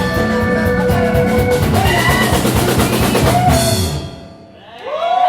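An ensemble playing loud music over a driving drum kit, which stops sharply about four seconds in; voices then rise in whoops and cheers near the end.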